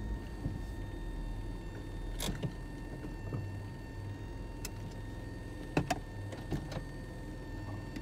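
1993 Toyota MR2 engine idling steadily, heard from inside the cabin, with a thin steady high tone over it. A few light clicks come about two seconds in and again around five to seven seconds in.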